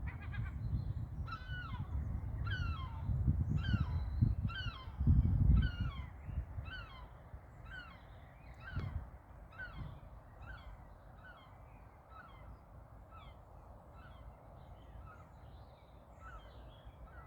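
A bird calling a long, regular series of short downward-slurred notes, a little under two a second, growing fainter toward the end. A low rumble sits under the calls and is loudest in the first few seconds.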